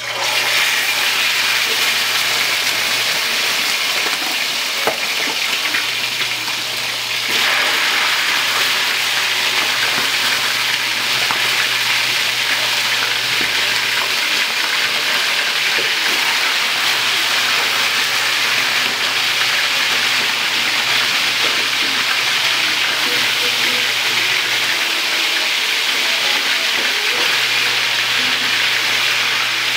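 Chicken pieces frying in hot oil in a grill pan: a loud, steady sizzle that starts suddenly as the first piece goes in and gets louder about seven seconds in.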